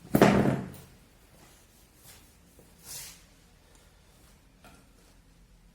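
A loud knock or clatter from handling the electric kettle's parts, fading within a second, then a brief softer scrape near three seconds.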